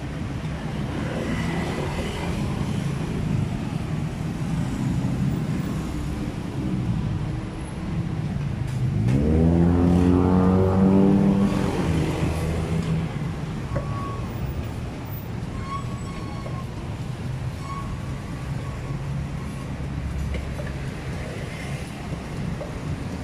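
Outdoor street ambience with a steady low engine hum. About nine seconds in, a motor vehicle's engine revs up, rising in pitch, stays loudest for two or three seconds, then fades away.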